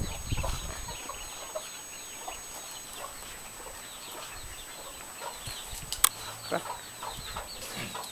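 A brood of young chicks and ducklings peeping continually in short, high, falling chirps. There is a brief low rumble at the start and a sharp click about six seconds in.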